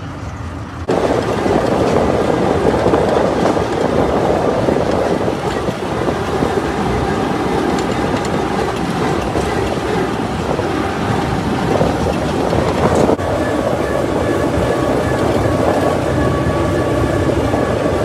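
Combine harvester running loud and steady as it travels, with a brief dip about thirteen seconds in.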